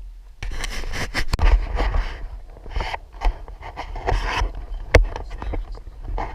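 Scraping and rubbing noise over a strong low rumble while riding a bicycle, with a few sharp knocks, the loudest about five seconds in. This is handling and wind noise on the microphone of a camera carried on the ride.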